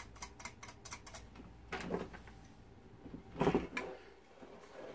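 Handling noise from a metal radio-phonograph chassis on a workbench: a run of small clicks and rattles, then a few short knocks as the chassis is shifted and turned.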